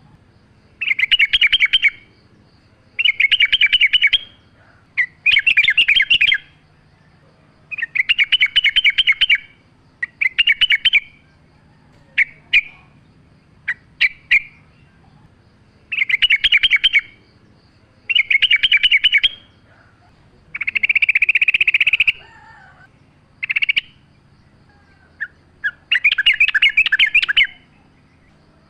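Yellow-vented bulbul (trucukan) singing: about nine bursts of fast, chattering, rolling phrases, each about a second long, with short single calls in the gaps. It is played as a lure song to get a caged bulbul singing.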